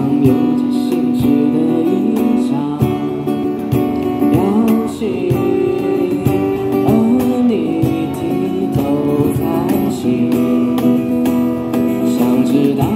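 A man singing into a microphone to an acoustic guitar accompaniment, a live vocal-and-guitar song performance.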